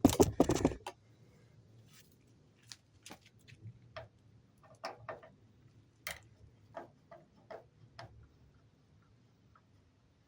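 Irregular light clicks and taps, about a dozen over several seconds, with uneven gaps between them.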